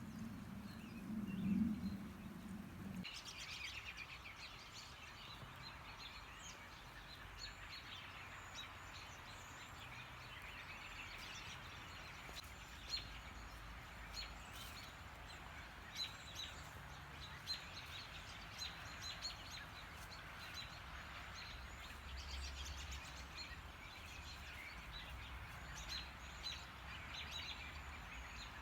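Small birds chirping, many short high calls repeated over a faint steady background hiss. For the first three seconds a low hum is the loudest sound, then it stops and the chirping begins.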